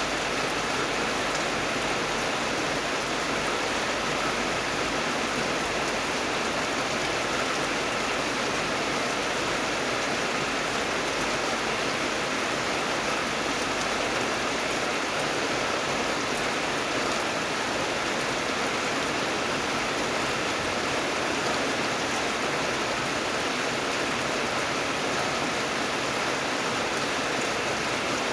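Steady rain falling: an even, unbroken hiss of water that holds the same level throughout.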